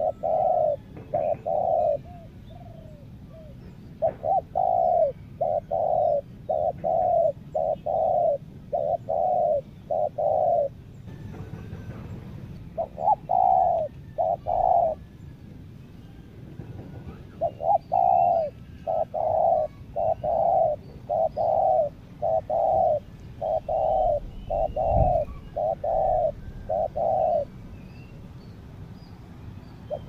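Spotted doves cooing: long runs of low, even coos in several bouts separated by short pauses. Faint chirps of small birds sound in the background, and there is a single low thump about five seconds before the end.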